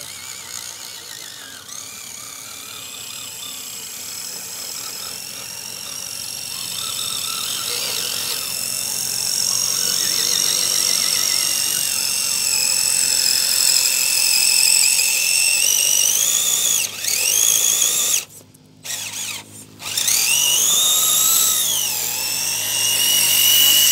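RC scale crawler's electric motor and geared drivetrain whining as it climbs, its pitch rising and falling with the throttle and growing louder as the truck comes close. It cuts out twice briefly near the end before whining again.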